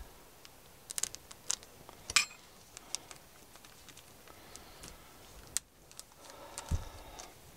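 Small clear plastic parts packet being opened and handled, crinkling in short sharp crackles, loudest about two seconds in, with a soft bump near the end.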